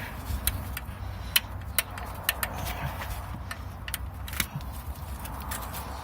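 Irregular sharp metallic clicks and taps, about a dozen, as the metal gear-linkage parts are worked loose by hand, over a low steady hum.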